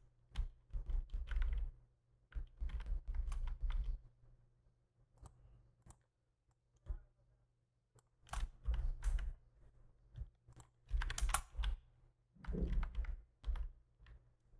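Computer keyboard being typed on in several bursts of rapid key clicks, with pauses of a few seconds between bursts.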